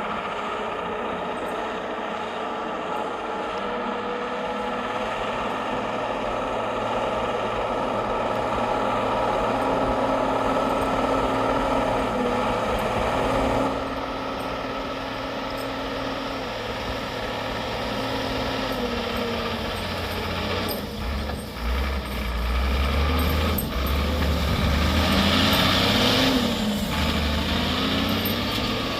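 Off-road vehicle's engine running continuously, its pitch wavering and rising and falling as it revs, with a deeper, louder rumble from about two-thirds of the way in.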